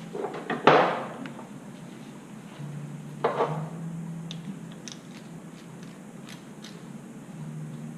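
Foredom flex shaft motor humming in short bursts as small holes are drilled in metal for rivets. Two sharp knocks on the bench, about a second in and again a few seconds later, the first the loudest.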